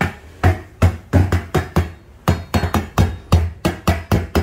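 Huper JS10 active speaker cabinet slapped repeatedly by hand, three or four uneven knocks a second. With each knock the music from the speaker cuts in briefly and drops out again: the intermittent-sound fault that shows when the cabinet is struck, which the seller puts down to this model's easily failing relay.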